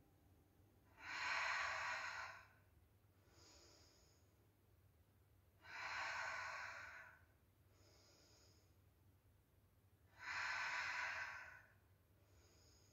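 A woman's paced breathing during a Pilates lunge with arm raises: three long, audible exhales about four seconds apart, each followed by a fainter, shorter inhale.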